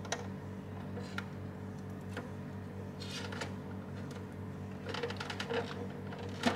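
Faint clicks and rustles of plastic and cables being handled as a USB header cable is pushed onto a motherboard's internal USB header, over a steady low hum.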